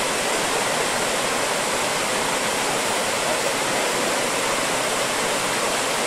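Whitewater rapids rushing over rocks: a steady, unbroken rush of water.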